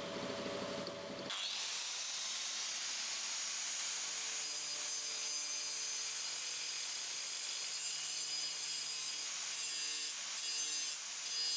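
Angle grinder with a toothed cutting disc spinning and cutting into a piece of wood: a rough, hissing grind over a steady motor whine. It starts about a second in, after a steady hum.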